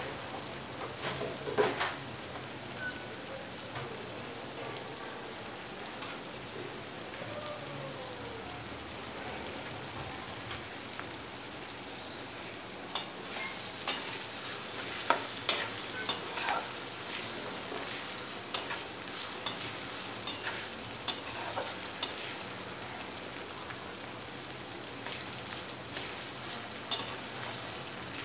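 Chopped onions sizzling in hot oil in a metal kadai, being sautéed until translucent. A slotted steel spatula scrapes and clicks against the pan a couple of times near the start, then in a run of strokes from about halfway through until near the end.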